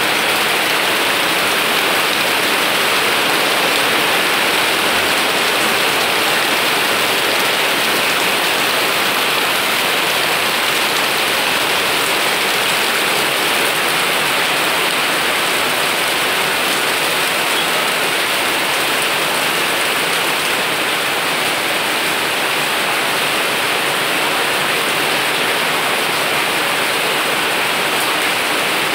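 Steady rain pouring down, an even, unbroken hiss of water falling on roofs and the garden.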